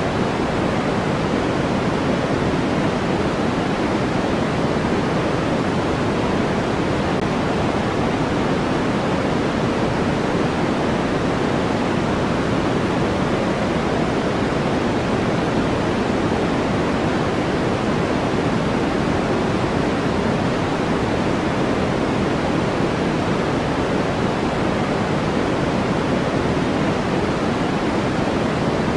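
Steady white noise played as a sleep aid: an even, unchanging hiss with no events in it. It is darker than flat white noise, with more weight in the low and middle range than in the highs, closer to pink noise.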